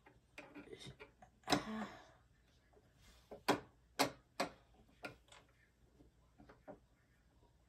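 Irregular clicks and small knocks from hands handling the needle plate and presser-foot area of a Janome M7 Continental sewing machine, the sharpest clicks coming in a cluster about three and a half to four and a half seconds in. The machine is not running.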